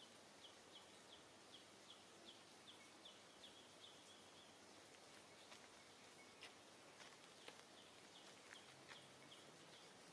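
Faint outdoor ambience: a small animal's short, high chirp repeated about three times a second, in two runs separated by a pause of a few seconds, with a few soft clicks in the middle.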